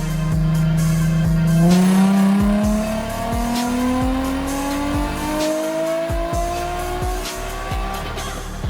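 Nissan 350Z's 3.5-litre VQ35HR V6 making a wide-open-throttle pull on a chassis dyno: a steady engine note, then the pitch rises smoothly from about two seconds in until near the end as the revs climb. A music track with a steady drum beat plays over it.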